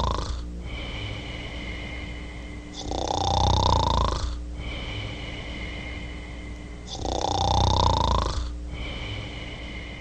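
Comic snoring in a steady cycle. A loud, rasping snore comes on each in-breath, about three and seven seconds in, and between snores the out-breath carries a steady high whistle.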